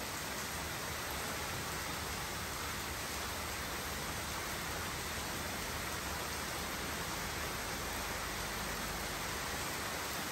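Steady rain falling, a constant even hiss that does not change.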